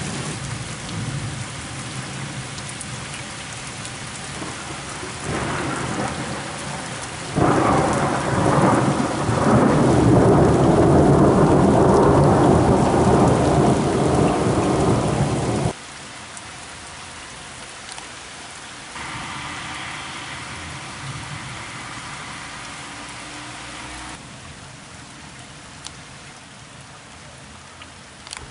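Steady rain with rolling thunder. The thunder swells about seven seconds in, rumbles loudly for about eight seconds and cuts off abruptly. After that only the rain is left, quieter.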